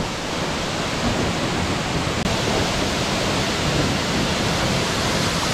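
Virginia Falls, a waterfall of about 80 feet, crashing down into its pool: a steady, loud rush of falling water with no breaks.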